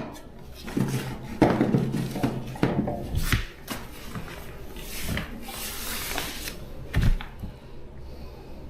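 Workshop handling noises: several sharp knocks and clunks of parts and tools being set down and moved, with a stretch of scraping or rubbing in the middle.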